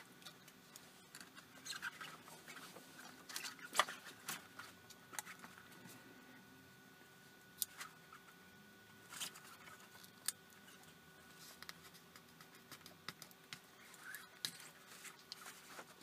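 Faint, scattered clicks and scrapes of small plastic parts and thin wires being handled and fitted together, the loudest a few seconds in, over a faint steady hum.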